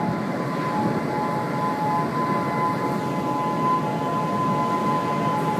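Steady rushing roar of wind from an approaching tornado, with two steady pitched tones of a warning signal sounding together over it.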